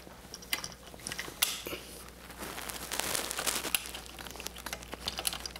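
Phillips screwdriver driving a small safety screw into a dolly wheel's axle push button: faint, scattered light clicks and scraping, busiest in the middle.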